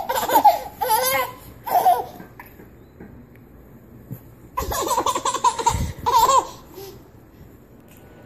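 A baby laughing in high-pitched bursts: a few short laughs in the first two seconds, then a longer run of laughter from about four and a half seconds in.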